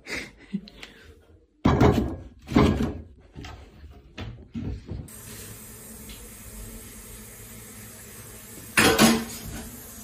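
Kitchen cupboard being opened and things knocked and shifted inside it: several separate knocks and clatters in the first half. After that comes a steady faint room hiss, broken by one short louder sound near the end.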